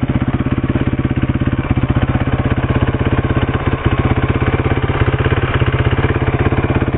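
1990 Suzuki DR250S's single-cylinder four-stroke engine idling steadily through its stock exhaust, with even, regular firing pulses and no misses.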